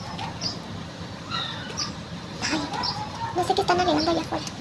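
Birds calling: a short high chirp repeated every second or so, and a louder, lower clucking call of a hen from about three seconds in.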